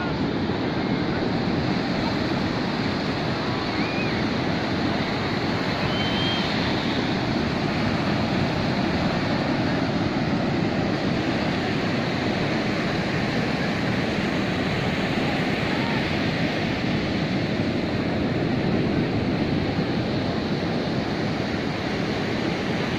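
Sea surf breaking steadily on a sandy beach, a continuous wash of noise, with faint distant voices of people on the beach.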